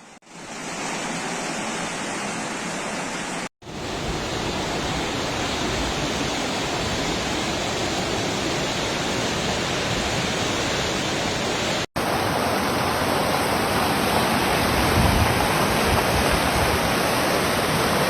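Floodwater rushing, a steady dense wash of water noise. It breaks off twice for a moment, about three and a half seconds and about twelve seconds in, and the sound shifts slightly after each break.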